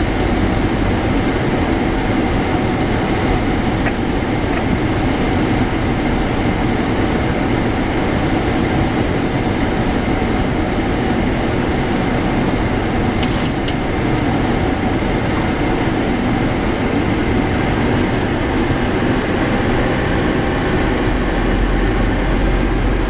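Steady cockpit noise of a Boeing 737NG on approach: airflow and engine drone with a low rumble. A short hiss about 13 seconds in.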